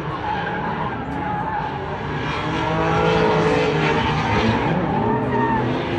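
Drift cars sliding in tandem: engines revving hard and tyres squealing, getting louder about two and a half seconds in.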